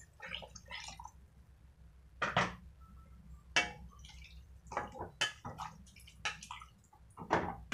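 Ladle stirring vegetables in water in a steel pan: a few short splashes and clinks against the pan, spaced about a second apart.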